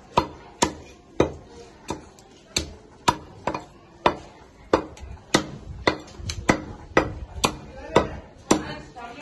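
Heavy meat cleaver chopping a whole country chicken through bone into a wooden log chopping block: sharp chops at about two a second, coming quicker about two-thirds of the way through.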